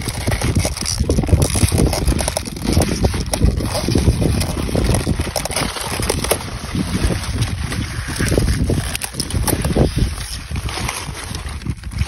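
Wind buffeting the microphone, an uneven low rumble that swells and drops throughout.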